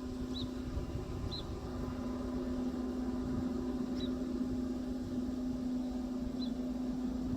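Steady, even drone of a Case IH 6140 combine harvester working corn at the far end of the field, holding one constant pitch over a low rumble. Four short, high chirps are heard over it.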